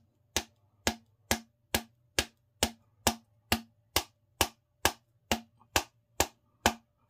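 A fishing rod handle being struck over and over to seat a part onto it: evenly spaced sharp taps, about two a second, each with a short ring.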